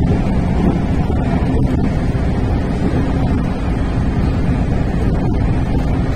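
Steady running noise of a JR Central 313 series electric train heard from inside the cab: an even low rumble of wheels on rail and running gear at line speed.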